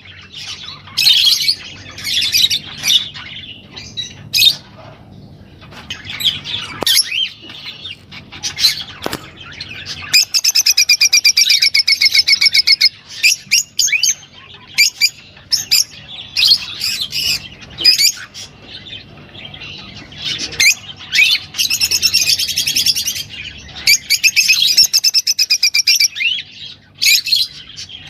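A caged songbird sings high-pitched song phrases, with long rapid trills and rolls broken by short pauses. This is the kind of song used as tutor song for training young ornamental birds.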